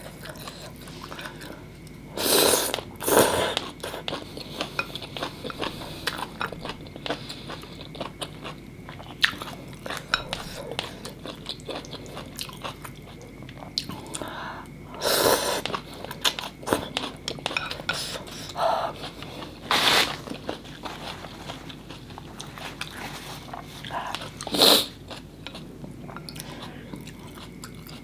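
Close-miked eating of vegetarian mì Quảng noodle soup: steady wet chewing with small mouth clicks, broken by a few loud slurps of noodles and broth.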